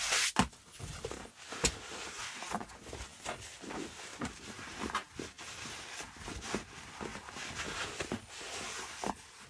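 Foam leather cleaner being scrubbed over a leather shoe: soft, uneven rubbing strokes with scattered small clicks.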